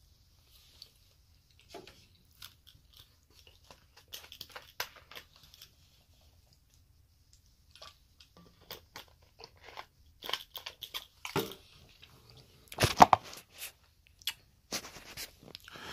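Close-up eating sounds: chewing, with scattered crisp clicks and smacks. About halfway through comes drinking from a plastic bottle. Near the end there is a loud knock, then rustling as the camera is handled.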